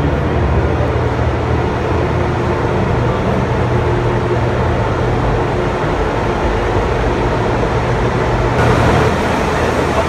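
Loud, steady drone of a hydroelectric powerhouse's running machinery, with a low electrical hum under it. It turns brighter and a little louder near the end.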